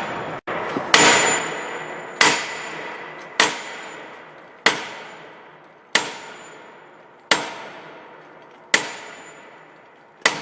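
Steady, evenly paced hammer blows on steel, about one every 1.3 seconds, eight strikes in all. Each blow is a sharp metallic clang that rings on and fades before the next.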